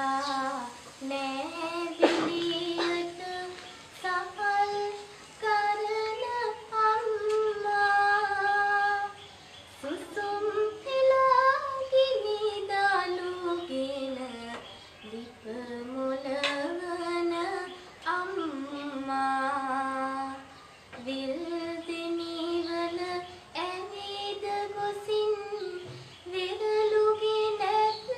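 A teenage schoolgirl singing solo and unaccompanied: a single voice holding long notes and sliding between them, in phrases broken by short pauses.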